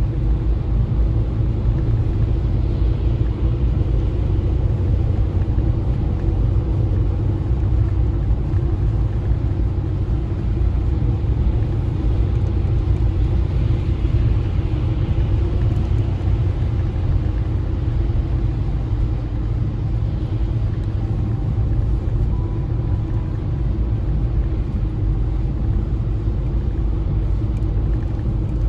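Car driving on a snowy road: a steady low rumble of engine and tyre noise.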